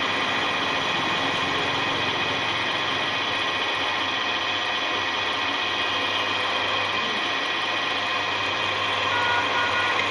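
Pillar drill press running steadily, its electric motor humming while the twist bit cuts into metal and throws off curled chips.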